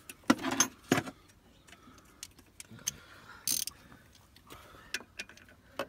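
A socket ratchet clicking in short spells, with metal tools knocking, while the 12 mm nut on a newly fitted starter motor's ground wire is worked on.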